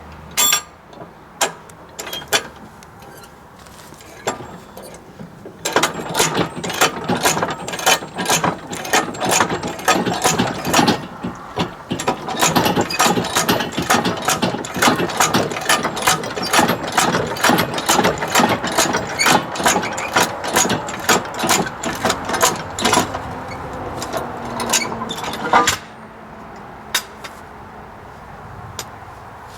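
Cordless grease gun running, its motor-driven pump clicking rapidly as it pushes grease into a mower deck spindle, for about twenty seconds before it stops suddenly. A few separate knocks come in the first seconds.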